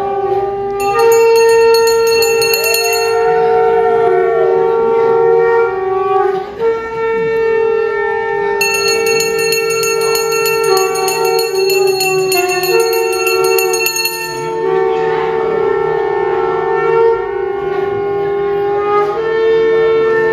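Conch shells (shankha) blown in long held notes at two pitches, overlapping and trading off, with a hand bell ringing rapidly over them for a couple of seconds near the start and again through the middle.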